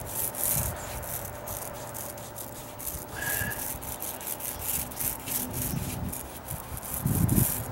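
Mini paint roller rolling wet primer back and forth over a wooden deck stair, a sticky, crackling rub with many small irregular ticks; its cover turns freely after WD-40 was sprayed on the inside. A louder low bump comes near the end.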